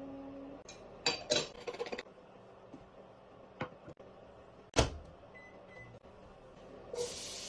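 Kitchen clatter of pans and utensils: a quick run of clinks and knocks, then one sharp knock about five seconds in, and a hiss lasting about a second near the end.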